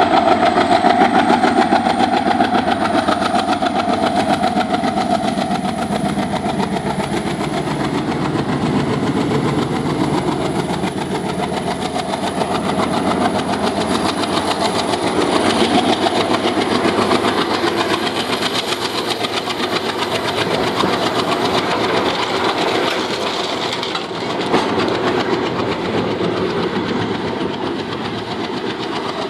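An ALCO WDM-3A diesel-electric locomotive's turbocharged 16-cylinder engine chugging as it passes close by hauling a freight train, with a thin high whine above it. Its hopper wagons then roll past, the sound easing slightly toward the end.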